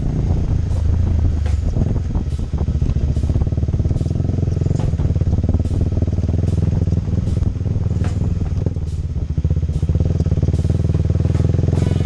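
Motorcycle engine running steadily with an even, fast low pulse and no revving, with a faint regular tick about one and a half times a second.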